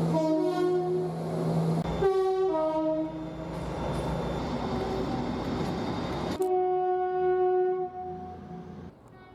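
British train two-tone horns: a high-then-low blast, a second high-then-low blast about two seconds in, then the rumble of a passing train. A sudden cut about six seconds in brings another train's horn blast, which fades near the end.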